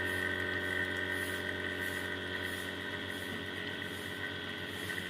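Steady machine hum with a high, even whine above it and a faint regular pulsing.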